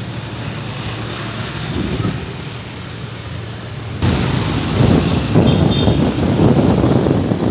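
Vehicle engine idling steadily while stopped. About four seconds in, the sound changes abruptly to loud, gusty wind buffeting on the microphone and road noise as the vehicle drives along.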